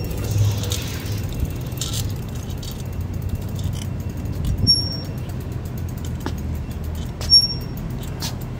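Steady low rumble of a bicycle being ridden slowly over pavement, with two short high-pitched squeaks, about five and seven seconds in.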